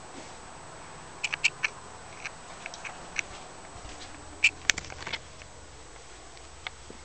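Short, sharp squeaks and clicks in small clusters, about a dozen in all, from footsteps on the floor as someone walks through: shoe soles or floor squeaking underfoot. Between them there is only a steady faint hiss.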